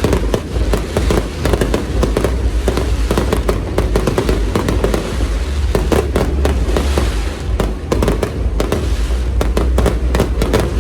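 Fireworks display going off: a dense, rapid run of bangs and crackles, several a second, over a continuous low rumble.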